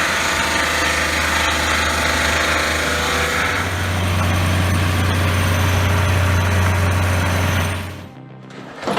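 Portable sawmill powered by a 30-horsepower Honda engine, running loud and steady with a strong low hum. Its sound shifts about three and a half seconds in, then cuts off abruptly near the end.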